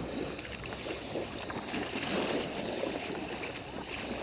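Small waves lapping and washing at the shoreline, an uneven watery wash that swells and falls every second or so.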